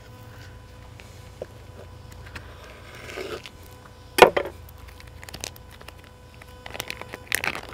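Handling a plastic bacon package over a wooden cutting board: a soft rustle, a single sharp knock about four seconds in, a few light clicks, then crinkling of the plastic wrapper near the end as it is pulled open.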